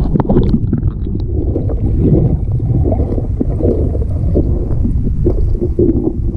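Steady low rumbling noise of wind buffeting the microphone, with a few light knocks about the first second.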